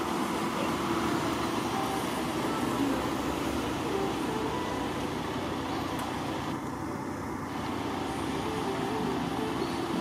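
Steady street traffic noise with idling vehicle engines, an even rumble throughout.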